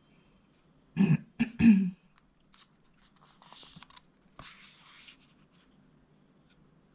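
A person clearing her throat with three quick, loud coughs about a second in, followed by a few fainter rustling sounds.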